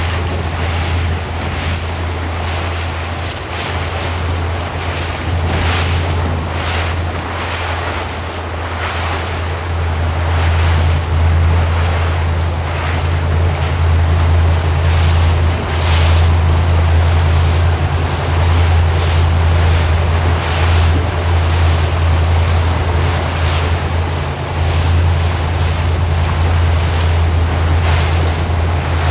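Motorboat engine running at low cruising speed with a steady low drone, water washing against the hull, and wind gusting over the microphone.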